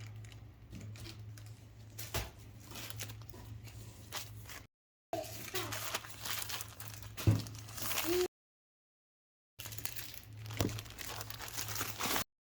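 Plastic packaging crinkling and tearing as items are unwrapped, with sharp crackles. It comes in three stretches broken by two brief gaps of dead silence, over a steady low hum.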